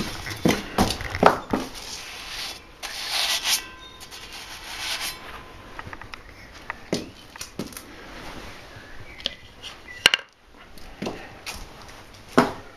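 Rubbing, scraping and irregular knocks of a wheel rim being handled and turned on a home-made wall-mounted manual tire changer, with a sharp click about ten seconds in.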